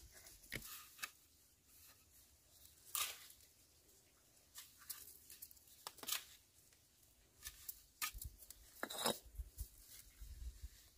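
A bricklayer's trowel scraping and tapping on mortar and bricks in short, irregular strokes, with a few sharper knocks about 3, 6, 8 and 9 seconds in.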